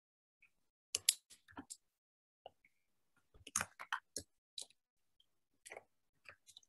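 Faint, scattered clicks and taps in a few small irregular clusters, from handling at a computer.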